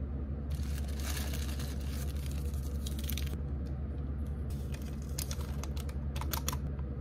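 Paper rustling and crinkling, then a small paper sugar packet being torn open, with short sharp tearing and crackling sounds near the end, over a steady low hum.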